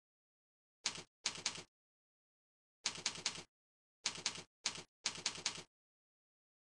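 Computer click sound effects from cursor software, played each time the mouse is clicked: short bursts of two to four quick clicks, about six bursts at irregular gaps with dead silence between them.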